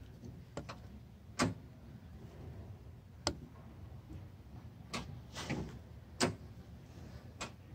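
A few isolated sharp clicks, a second or two apart, as the ignition key of a chuck wagon utility vehicle is tried, with no cranking: the newly fitted electric starter does not turn the 340cc Honda engine, which the owner puts down to a dead battery.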